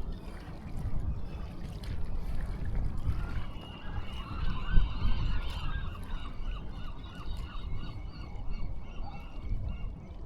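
A flock of geese honking: many short, overlapping calls that start a few seconds in and go on to near the end, over a steady low rumble.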